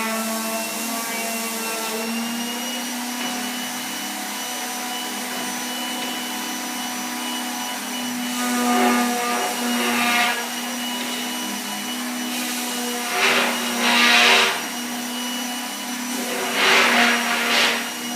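Electric sander running steadily on wood, its motor humming, with louder gritty rasping surges several times in the second half as it bites into the wood.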